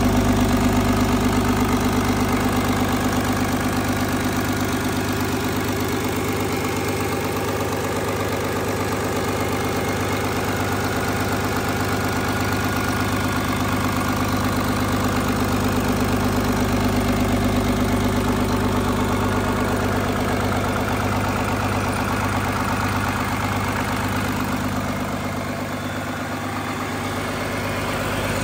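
Rebuilt Doosan DL08 inline six-cylinder diesel engine running at a steady idle on a test stand, heard close up.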